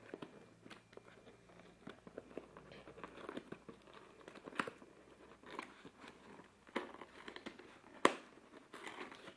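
A PostPack courier mailer and its paper document pocket being peeled and pulled apart by hand, giving irregular crinkling and crackling, with one sharp snap about eight seconds in.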